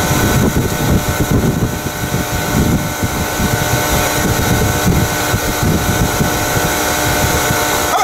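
Bee vacuum running steadily as its hose nozzle sucks honey bees off a honeycomb: a loud motor hum with several fixed whining tones over a rush of air.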